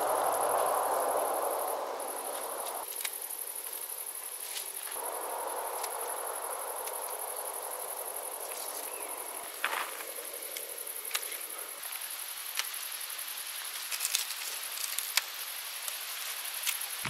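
Crickets trilling in a steady high-pitched chorus, with rustling of plant foliage on and off and, in the second half, a few sharp snips of garden pruning shears cutting fruit from the plants.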